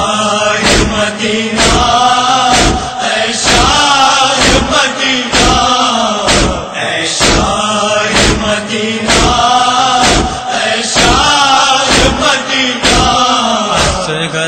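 Male voices chanting a noha lament in a slow, drawn-out melody, over steady chest-beating (matam) strokes about twice a second.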